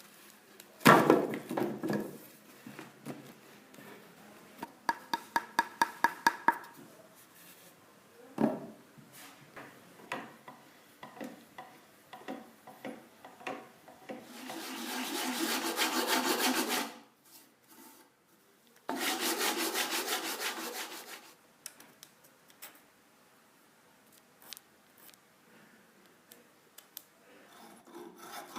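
Hand tools working wood: a sharp knock about a second in, a quick run of about a dozen ticks, another knock, then two long rough rubbing passes of a few seconds each, like a rasp or saw drawn across the wood.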